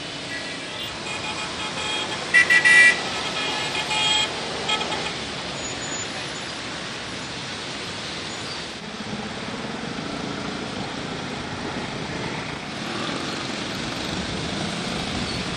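Road traffic: car horns honking repeatedly over a steady hum of engines, loudest about two and a half seconds in, then a low engine rumble later on.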